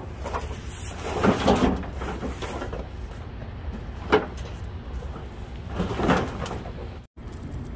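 Large cardboard boxes holding a base cabinet being pushed and shoved into a pickup truck bed: several scraping, knocking handling sounds, with one sharp knock about four seconds in.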